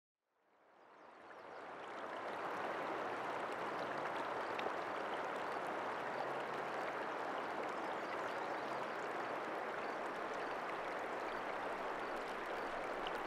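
Flowing river water: a steady rushing that fades in over the first two seconds and then holds even, with a few faint ticks.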